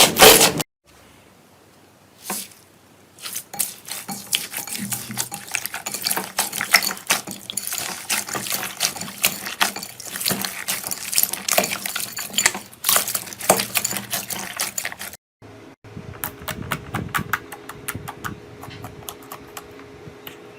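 Slime being squeezed and poked by hand: irregular wet clicks, pops and squelches. After a brief quiet spell near the start, they come densely. Near the end they change to quicker, sharper crackles.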